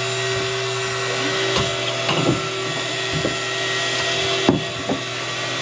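A boat's motor humming steadily with several constant tones, over a few sharp knocks and clunks from handling on deck, the loudest about four and a half seconds in.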